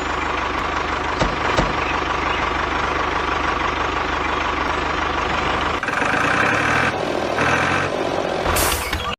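Tractor engine running steadily with a regular low knocking pulse. About six seconds in, the sound changes abruptly to a higher hum with several steady pitched tones.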